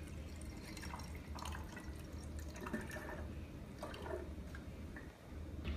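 Juice poured through a funnel into a glass bottle: faint dripping and trickling with a few small splashes.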